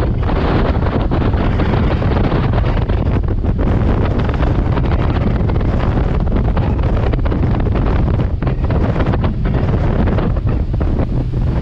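Water taxi speedboat running at speed, heard from inside its cabin: a steady engine drone under loud rushing wind.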